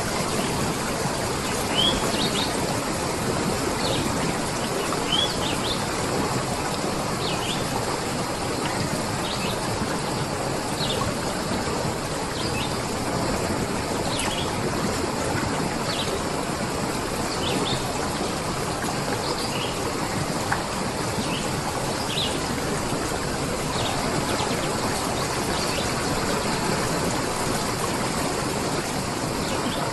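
Steady rush of running water, with small birds giving short high chirps every second or two over it.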